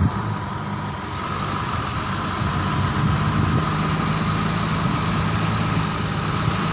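Vehicle engine idling steadily while the vehicle stands stopped, heard from inside the cabin: a low, even hum with a faint steady whine above it.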